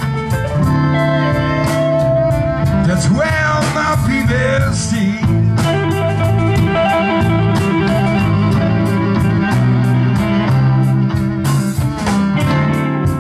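Live band playing a slow blues instrumental passage: electric guitars and fiddle over drums keeping a steady beat, with lead lines that bend in pitch.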